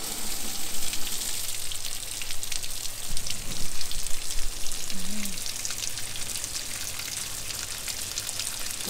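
Bleach water gushing out of an RV's cold-water low point drain line and splashing into a sewer hose funnel below.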